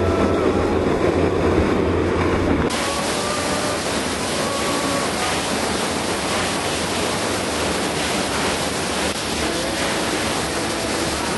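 Rushing water: a deep rumble for the first few seconds, then after an abrupt cut the steady, hissing rush of a waterfall pouring out of a cave.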